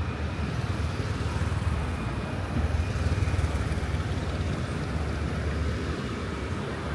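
City road traffic: a steady rumble of passing cars and motorbikes, briefly louder about three seconds in as a vehicle passes close.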